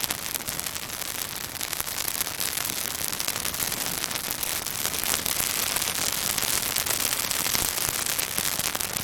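Pine branches burning in a bonfire, crackling and sizzling: a dense, fast run of small snaps over a steady hiss, somewhat louder in the second half.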